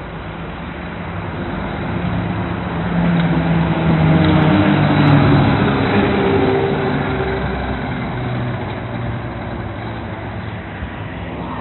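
Diesel engine of an Iveco Magirus fire engine pulling out of the station and driving past. It grows louder to a peak about five seconds in, then fades as the truck moves off.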